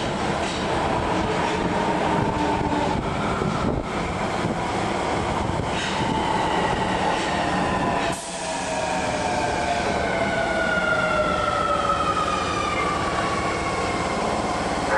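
Osaka Metro Midosuji Line subway train on the neighbouring platform track: a steady rumble of wheels on rail, with an electric motor whine that falls slowly in pitch through the second half as the train slows.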